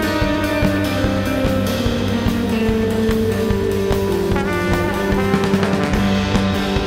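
Instrumental band music: a low brass instrument plays long held melody notes over a drum kit, with electric guitar.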